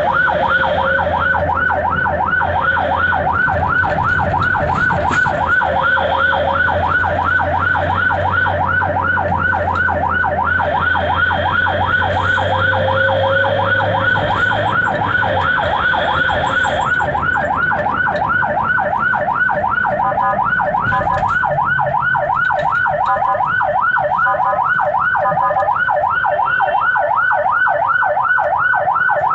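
Ambulance's electronic siren heard from inside the cab, sounding a yelp: a fast rising-and-falling wail repeating several times a second, which turns choppier for a few seconds about twenty seconds in.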